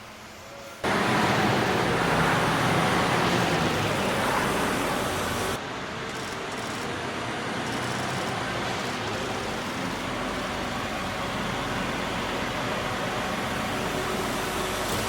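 Steady, even factory-hall noise that starts suddenly about a second in, drops a little in level about five seconds later, then holds steady.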